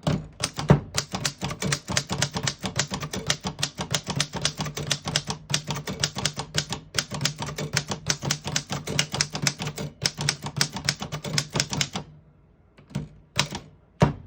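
1918 Corona Folding No. 3 typewriter typing a sentence: a quick, even run of type-bar strikes, about five or six a second, with two short pauses. The typing stops after about twelve seconds and is followed by a few single clacks near the end.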